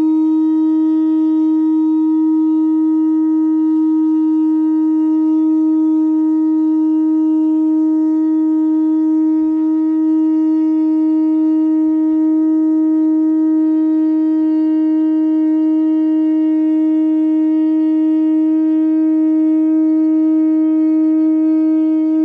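Conch shell horn blown in one long, steady note held for over twenty seconds, bending slightly up in pitch as it stops.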